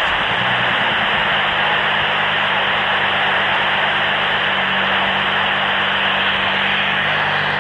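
Steady FM static hiss from a Baofeng BF-F8HP handheld radio's speaker, tuned to the AO-91 satellite downlink with no voice coming through, with a faint low hum underneath.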